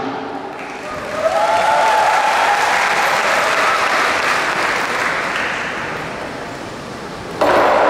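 Arena audience applauding with some cheering voices while the lion dance drums pause; about seven seconds in, the loud lion dance percussion comes back in abruptly.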